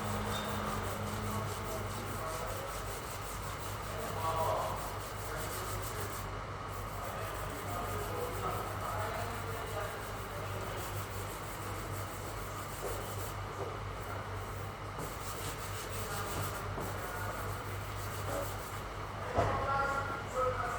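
Sandpaper rubbing steadily over a dent, sanding the area down.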